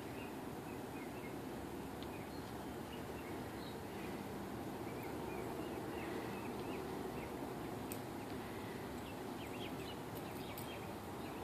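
Steady low outdoor background noise with faint, scattered bird chirps, coming more often near the end.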